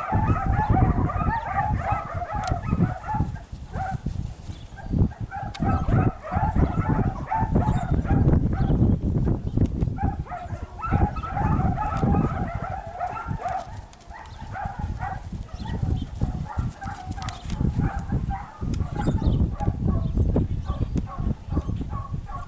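Border collie pup barking in quick, repeated yips, in several bouts, over a low wind rumble on the microphone.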